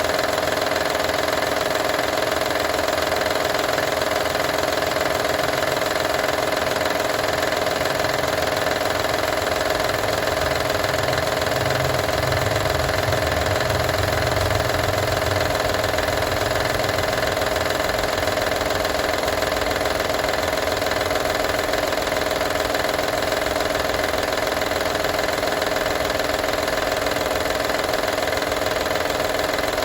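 A 2012 Honda Odyssey's V6 engine running steadily with a hum and a rattle, the rattle being the fault the owner wants found and fixed.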